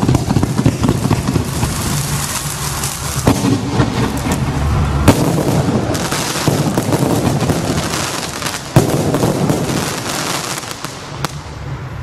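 A Grand Prix 150-shot firework cake firing its finale: a dense, rapid volley of shots and bursting shells, with a few louder bangs standing out. The firing thins out and dies down near the end.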